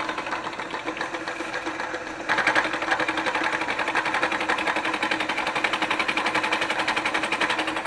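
Manual milling machine hand-fed across a cast-iron exhaust manifold, milling a new face: a steady motor hum under a rapid, even chatter from the cutter, which grows louder about two seconds in.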